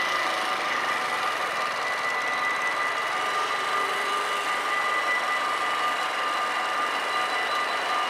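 Warning bells of a Dutch automatic half-barrier level crossing ringing steadily, over a constant rumble of rail and road noise, with a moped engine briefly near the middle.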